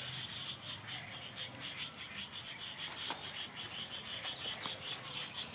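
Insects chirping in a fast, even pulse of about five chirps a second, over a steady high-pitched whine.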